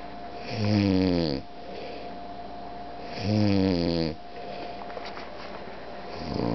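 A man snoring in his sleep: loud snores about a second long, coming every two and a half seconds or so, the third starting near the end.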